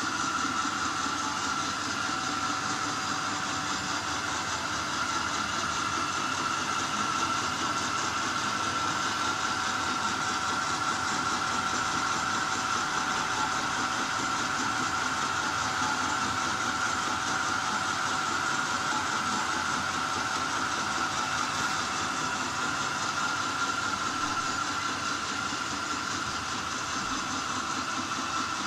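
Manual vertical milling machine running an end mill through a steel motorcycle springer fork tree: a steady machine run with a continuous high whine over the spindle noise.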